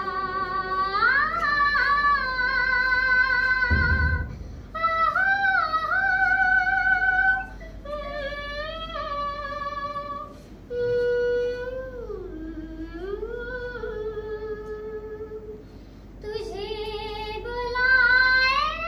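A young girl singing a melodic song solo and unaccompanied. She sings long held notes that glide between pitches, in phrases broken by short pauses for breath.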